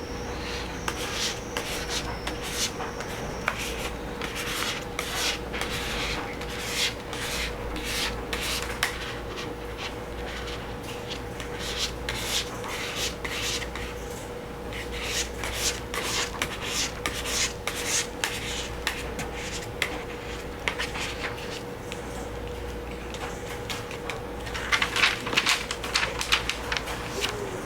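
Hand rubbing strokes across the face of a drawing tablet's screen, heard as short hissing swipes at an irregular pace, with a quicker flurry near the end. A faint steady hum runs underneath.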